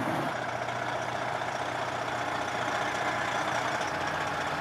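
Semi-truck's diesel engine running steadily.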